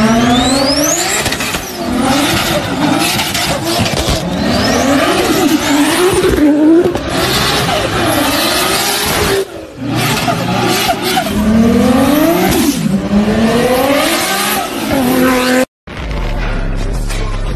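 Japanese performance cars accelerating hard one after another. Each engine's pitch climbs and then drops at each gear change, with some tyre squeal.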